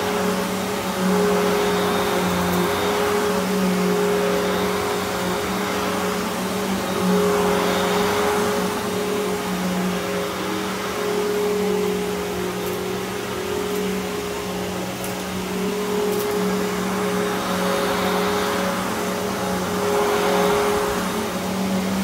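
Riccar Vibrance Classic upright vacuum cleaner running steadily as it is pushed and pulled across carpet: a constant motor hum, with a rush of air that swells and fades with each stroke every few seconds.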